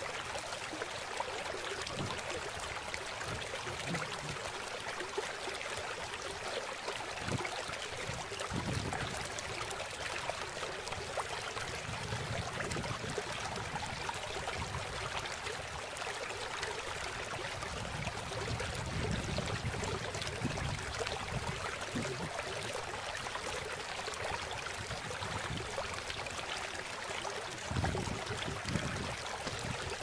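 Steady rushing of flowing river water, a continuous even hiss with occasional low rumbles.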